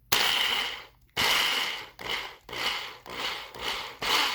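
Power drill run in repeated bursts, two longer ones and then several short ones, boring a hole through the top of a device wrapped in spongy waterproof padding.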